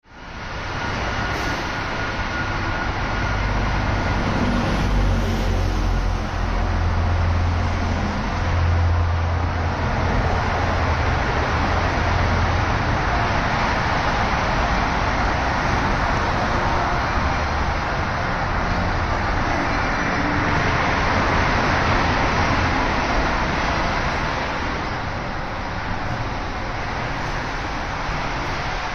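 Baltimore Metro Subway car running, heard from inside: a steady rush of wheels on rail over a low rumble, fading in at the start.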